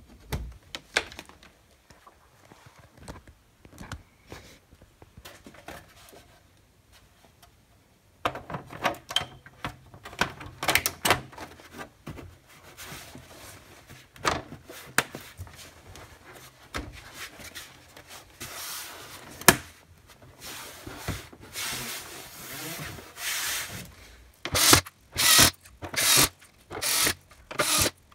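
Plastic back cover of a Samsung LED TV being handled and fitted onto the set: rubbing, knocks and clicks, busier from about a third of the way in, with a run of short loud bursts nearly twice a second near the end.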